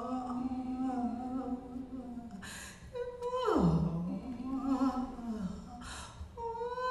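A woman's wordless improvised singing: held, wavering notes, with a sharp breath twice, each followed by a steep downward swoop in pitch.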